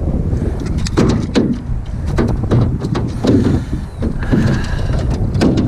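Wind buffeting the microphone, with a run of irregular knocks, clatter and scrapes as a freshly caught northern pike is landed and handled in the boat.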